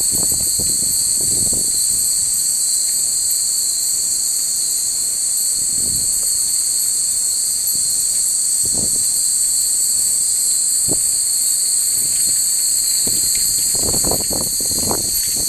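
Steady, high-pitched chorus of summer insects droning without a break. Gusts of wind rumble on the microphone, most near the end, when wind chimes tinkle faintly.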